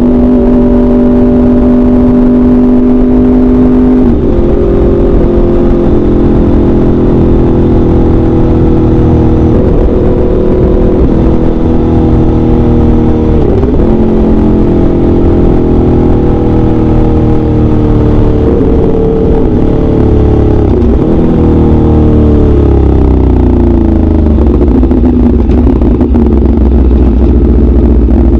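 2016 Aprilia RSV4 RF's V4 engine running through an SC-Project CRT exhaust, heard on board at steady cruising revs. The note shifts about four seconds in, dips briefly a few times, then falls over a couple of seconds as the bike slows, over a heavy wind rumble.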